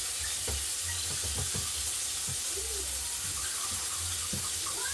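Flour-coated chicken pieces sizzling steadily in a pot of hot frying oil.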